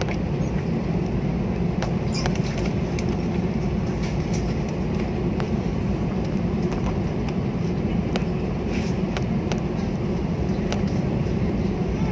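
Inside the cabin of a jet airliner taxiing: a steady low rumble of the engines at taxi power and the airflow, with scattered light clicks and rattles.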